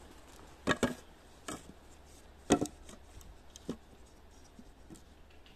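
A few sharp, irregular knocks of wood being struck: two close together about a second in, then single knocks, the loudest around two and a half seconds in.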